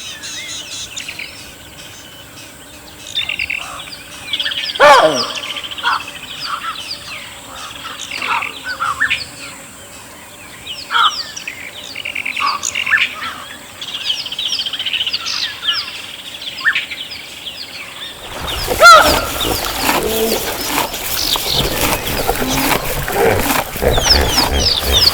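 Wild birds chirping and whistling in short, overlapping calls. About eighteen seconds in, the background changes abruptly to a louder, busier chorus of calls.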